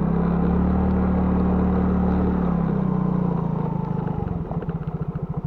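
Small motorcycle engine under throttle on a dirt track, holding steady revs, then eased off about four seconds in and dropping to a slow low-rev beat.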